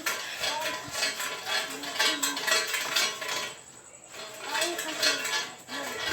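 Light metal clinking and rattling: quick, uneven knocks and clinks that go quieter for a moment a little past the middle.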